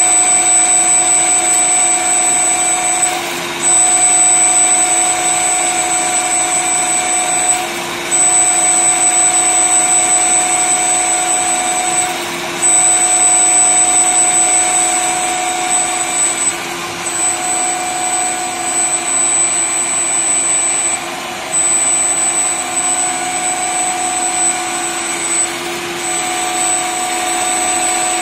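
Small CNC turret lathe running and machining a metal bar: a steady mechanical whine with several high tones, broken by a short dip about every four to five seconds.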